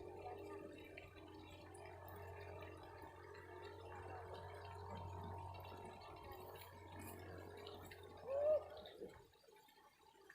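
Water gurgling and trickling over a steady low hum that stops about nine seconds in, with one short arched chirp just before it stops.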